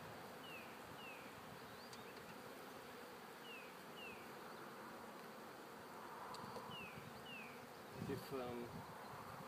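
A honey bee colony humming steadily from a hive opened for inspection, its frames being lifted out. A bird repeats a pair of short, high, falling notes about every three seconds.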